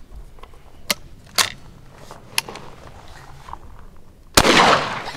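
A few light handling clicks from a 20-gauge single-shot break-action shotgun, then a single shotgun shot about four seconds in, its report dying away in under a second.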